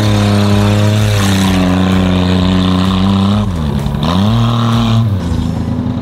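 Car engine running at high revs as the car is driven off. Its pitch dips about three and a half seconds in and rises again, and the sound falls away about five seconds in.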